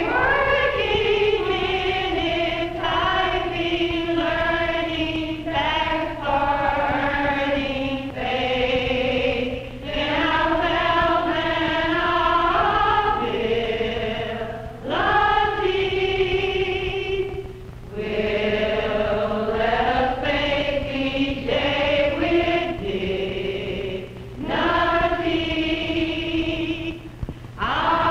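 A group of women singing together as a choir in long held phrases, with short breaks between them. A steady low hum runs underneath.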